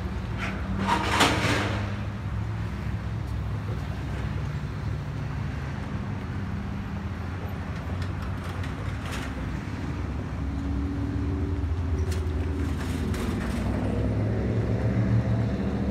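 Road traffic: cars and pickup trucks passing, with a steady low engine hum that grows louder toward the end. A brief louder burst of noise comes about a second in, and a few short clicks later on.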